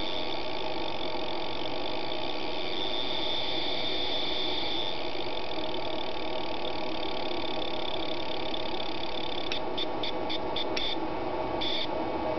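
Spark plug fired about 30–40 times a second by a car ignition coil pulsed from a 555-timer PWM circuit: a steady electric buzz. About nine and a half seconds in it breaks into short on-off bursts, the spark being chopped by the gating circuit.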